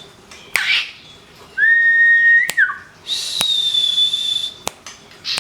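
Caged songbirds, a white-rumped shama and a cipoh, whistling in long, steady held notes. A lower held note comes about one and a half seconds in, then a higher one about three seconds in, with sharp clicks between.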